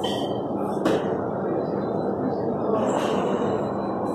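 Steady low room noise with a constant hum, and a single sharp knock about a second in.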